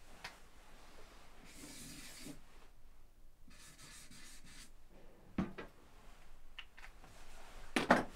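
A marker rubbing and scratching across a wall in strokes as someone draws, with a couple of light taps and a louder knock near the end.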